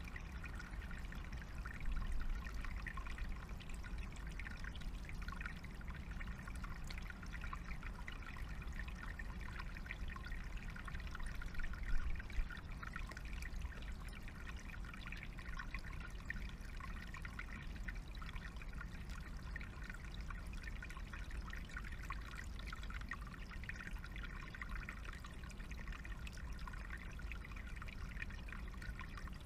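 Small stream trickling steadily over stones, with a low rumble underneath and two brief louder noises about two and twelve seconds in.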